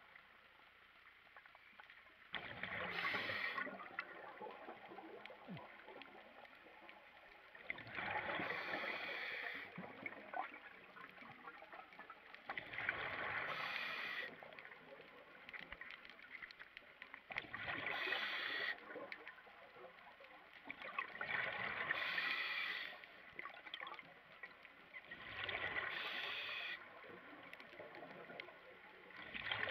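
A scuba diver's exhaled bubbles rushing from the regulator underwater, heard as bursts of gurgling noise about every four and a half seconds, six in all, with a quieter hiss between breaths.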